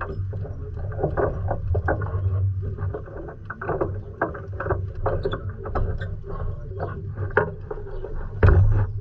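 Irregular metal clinks and knocks as a chain stripper is refitted by hand onto a sailboat's anchor windlass, among its gypsy and anchor chain, over a steady low rumble.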